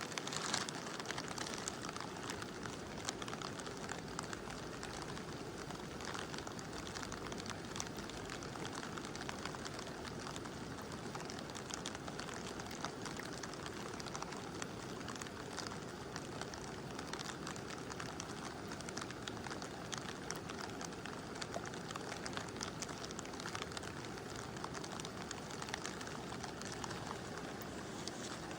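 Steady rush of a mountain river under gentle rain, with many small raindrop hits scattered through it.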